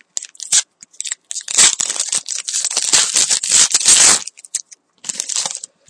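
Hands tearing open and crinkling the wrapper of a Panini Titanium hockey card pack. The crackle is densest for about three seconds in the middle, with shorter crinkles near the end.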